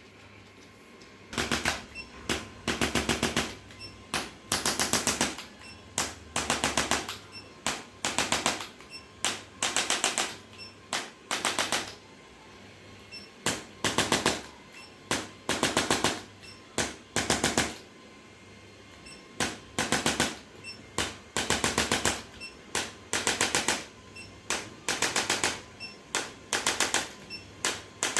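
A mechanical percussion device used in chiropractic treatment, firing bursts of rapid, evenly spaced taps. Each burst lasts about a second, with short pauses between, again and again.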